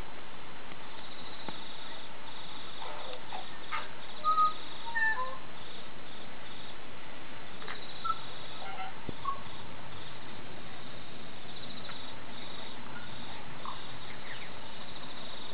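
A handled squeaking longhorn beetle giving a few short, faint squeaks over a steady hiss. The squeaks come in a cluster about four to five seconds in, then singly a few more times. It is the beetle's alarm squeak when held between the fingers, made by rubbing parts of its thorax together.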